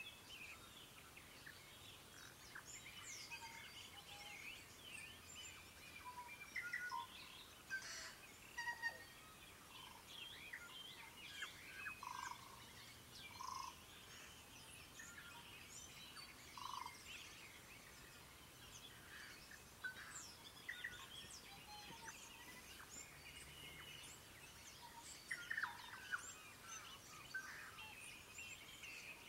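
Morning chorus of many birds singing at once: a dense, continuous mix of short chirps, trills and whistles, with a few lower, rounder notes standing out now and then.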